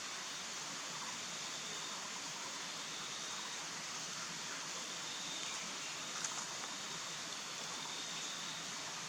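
Steady hissing background noise, with a faint high steady tone running through it and a single short click about six seconds in.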